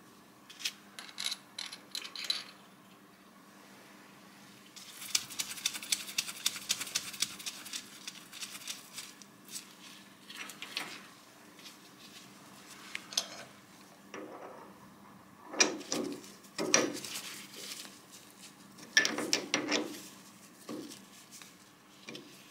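Clicks, knocks and clatter of metal tools and parts being handled at a lathe while a tap is set up in the tailstock, with a run of fast ticking from about five to eight seconds in and a few louder knocks near the end.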